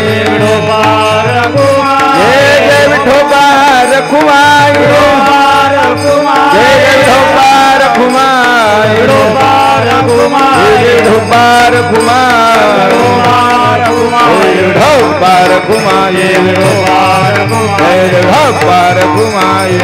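Marathi Varkari kirtan music: a man's voice sings a wavering melodic line without clear words over held drone tones and a steady beat, with small hand cymbals (tal) clashing in time.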